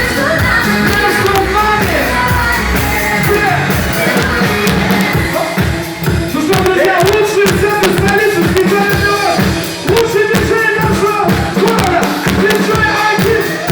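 Loud live dance music with drums: a steady kick-drum beat, a little over two hits a second, under a repeating melody.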